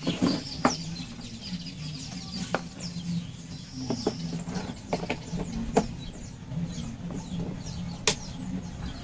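Chickens clucking in the background, with scattered sharp clicks and knocks of handling over a low hum.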